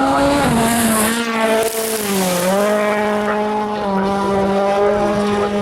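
Ford Fiesta WRC rally car's engine running hard at high revs. The pitch dips briefly a little over two seconds in, then recovers and holds steady. A short hiss comes about a second in.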